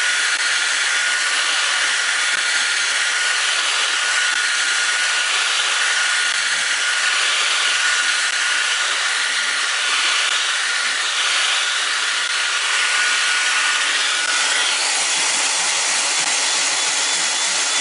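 Cordless drill running steadily, spinning a polishing pad against a plastic headlight lens to buff off oxidation. A thin steady whine rides over the running and fades out about 15 seconds in.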